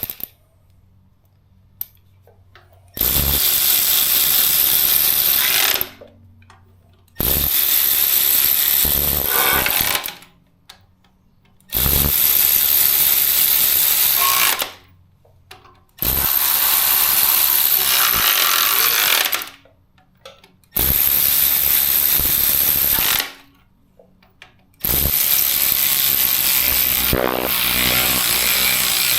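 Cordless electric ratchet running bolts in, in six separate runs of about three seconds each with short pauses between them. Its battery sounds about dead.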